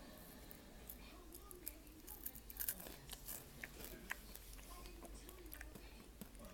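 A person chewing an edible cricket with the mouth close to the microphone: small, irregular crunches and crackles, a soft crunch.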